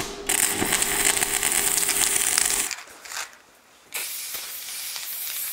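MIG welding arc crackling for about the first two and a half seconds, over a steady hum, then cutting off. After a short gap, an even spray-like hiss with a few sharp clicks starts about four seconds in.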